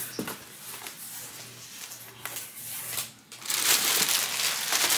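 Plastic air-pillow packing and plastic wrap rustling and crinkling as they are handled and pulled out of a cardboard box: a few light clicks and rustles at first, then much louder crinkling from about three and a half seconds in.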